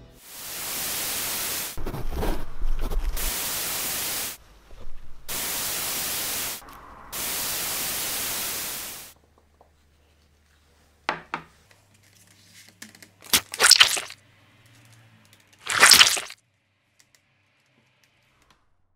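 Static-like hiss that cuts on and off in several blocks for the first nine seconds, then a few short sharp noises, the loudest two a little past halfway and near the end.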